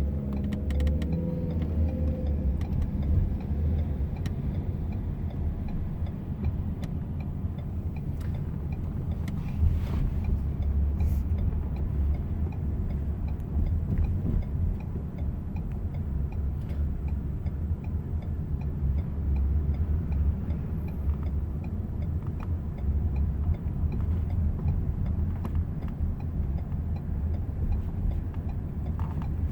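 Lincoln MKZ driving, heard from inside the cabin: a steady low road and engine rumble, with the hazard lights ticking faintly.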